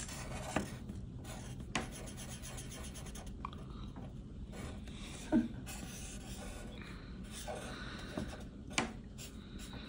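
Sharpie marker drawing on paper: faint scratching and rubbing of the felt tip as it moves across the sheet, with a few soft clicks.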